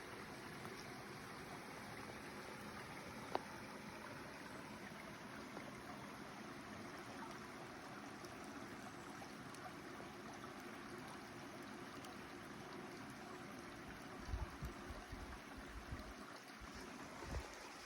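Steady soft rushing of running water, with one sharp click about three seconds in and a few low thumps near the end.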